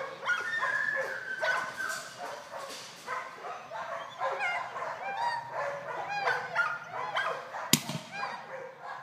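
Young golden retriever whining and yipping, a run of high cries that bend up and down in pitch, with one sharp click near the end.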